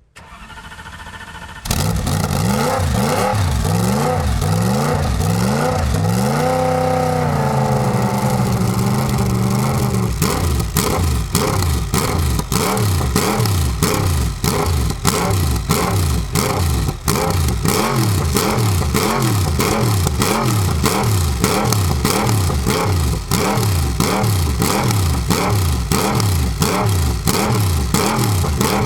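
Mercedes-Sauber C11 Group C racer's twin-turbo V8 being warmed up with repeated throttle blips, revs rising and falling over and over. About six seconds in, the revs are held up briefly. From about ten seconds the blips come quicker, with sharp cracks between them.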